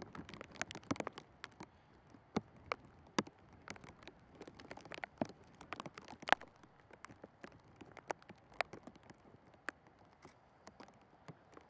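Scattered light taps and clicks at irregular intervals, over a faint steady hiss.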